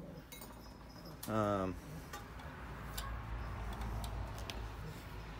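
A brief hum from the man about a second in, then a few faint light clicks of the mower engine's governor spring and linkage wire being worked loose by hand, over a low rumble.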